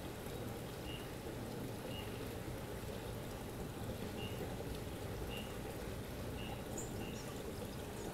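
Steady pouring sound of running water, with a short high chirp about once a second.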